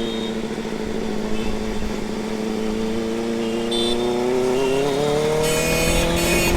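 Benelli motorcycle engine under way, holding a steady note and then rising in pitch as it accelerates, with a drop near the end as the revs fall.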